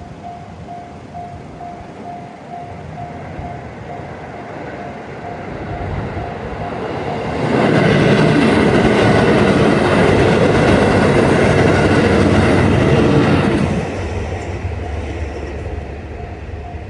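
Japanese level-crossing warning bell ringing its rapid repeating "kan-kan", about three strikes a second, while a train passes loudly from about seven and a half to fourteen seconds in, drowning out the bell; the bell is heard again near the end.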